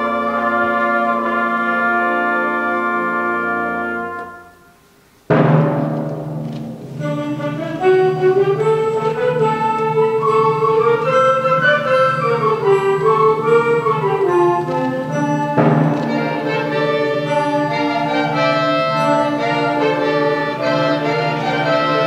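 Concert band of woodwinds, brass and percussion playing. A held chord fades out about four seconds in, there is a brief pause, then the full band comes in suddenly and loudly with a melody that rises and falls over a low held note.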